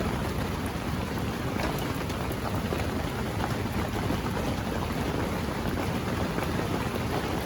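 Steady rain falling on the tent, an even rushing noise without a break.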